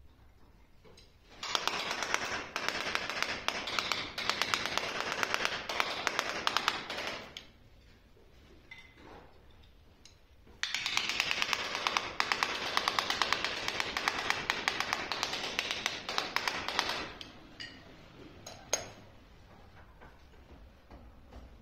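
Rapid tapping on freshly laid ceramic floor tiles to bed them into the mortar, in two runs of about six seconds each with a pause between. A single sharp click comes near the end.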